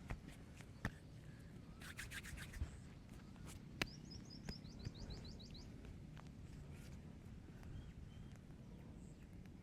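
A bird chirping a quick series of short rising notes about four seconds in, over faint low background noise with scattered light clicks and taps, including a quick run of clicks about two seconds in.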